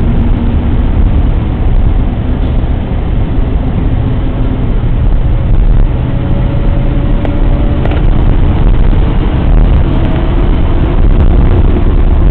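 Steady low rumble of a car's engine and tyres on the road, heard from inside the cabin while moving slowly in highway traffic.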